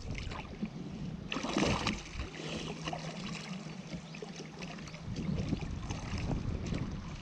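Water splashing and lapping against the hull of a sit-on-top kayak as it moves through choppy sea, with a louder splash about a second and a half in, and wind on the microphone.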